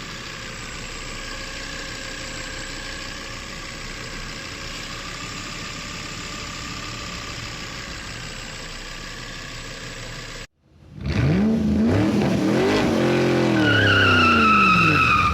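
Volvo 2.5T turbocharged inline-five engine idling steadily, with air being drawn in at the open dipstick tube. After a cut about ten seconds in, a louder recording of the engine revving up and down, and near the end a loud high whistle sets in. That whistle is the noise a failed crankcase ventilation (oil separator) diaphragm causes.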